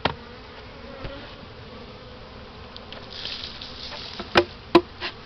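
Honeybees buzzing steadily around an open hive. Sharp knocks cut through it: one at the start, then two loud knocks about four and a half seconds in, as the box is jarred to shake the bees out.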